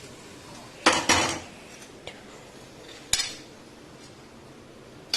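A metal spoon scraping and knocking against a kadai and plate while fried potato pieces are served out: two clattering scrapes close together about a second in, another about three seconds in, and a short knock at the very end.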